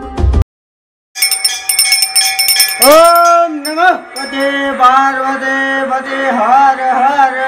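After a brief snatch of music and a short silence, metal temple bells ring in quick repeated strikes. About three seconds in, a voice starts chanting a devotional song over the bells during a puja.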